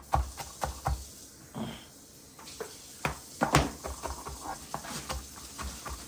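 Cabbage being shredded by hand: irregular knocks and scraping strokes, with a pause of about two seconds after the first second.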